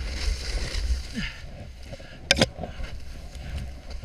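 Snowboard riding through deep powder: a steady hiss of snow against the board with wind rumbling on the microphone. A sharp knock a little past halfway.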